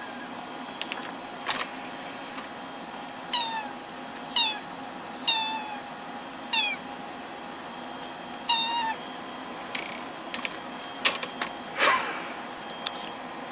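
Cat meowing five times in short, high calls, each dropping in pitch at the end, over a steady background hum. A few sharp clicks come before the meows, and two louder knocks near the end.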